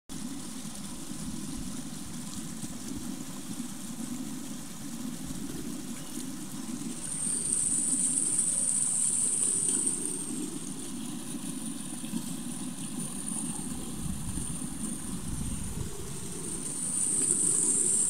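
A small shallow stream running over stones, a steady low rushing. It grows louder with a high hiss twice, about seven seconds in and again near the end.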